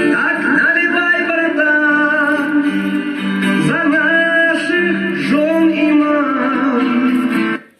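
A song with a singing voice over instrumental backing, played through the built-in speakers of a Samsung VR3711TF CRT television. It cuts off abruptly near the end.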